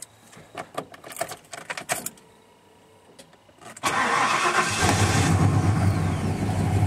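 A few light clicks, then about four seconds in the starter cranks the freshly rebuilt 351 Windsor V8 of a 1994 Ford F-150. It catches within a second and settles into a steady idle around 1,000 rpm, with ignition timing not yet fully set.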